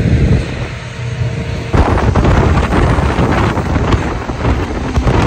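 Wind buffeting the microphone in a moving car with its roof cut off, over the low rumble of the car; the buffeting turns louder and rougher a little under two seconds in.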